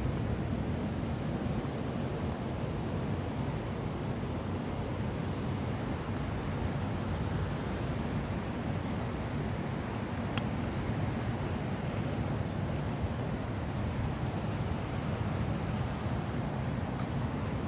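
Crickets trilling steadily in high, unbroken tones, over a low steady rumble. One of the two trills drops out about six seconds in and comes back a few seconds later.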